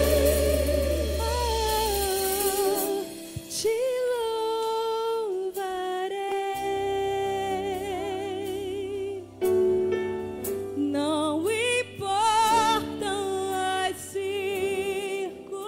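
A female voice sings long held, wordless notes with a wide vibrato over sustained accompaniment in a live gospel worship song.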